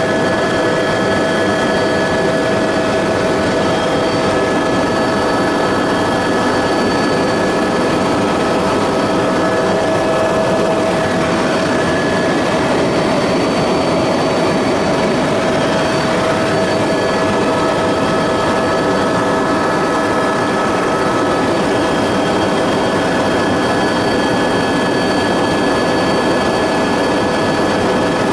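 Helicopter engine and rotor running steadily in flight, heard from inside the cabin: an even, dense noise with a few constant whining tones through it.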